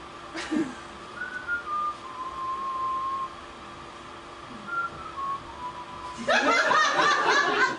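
Someone whistling a few thin notes, some of them sliding in pitch. Near the end a louder burst of laughter breaks in.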